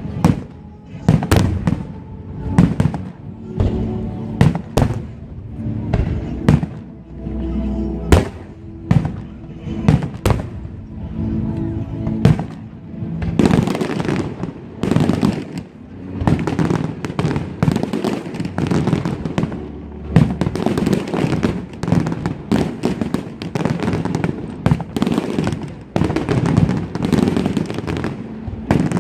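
Fireworks show: aerial shells bursting in sharp bangs one after another, with music playing along. About halfway through, the bursts turn into a dense, continuous crackling volley.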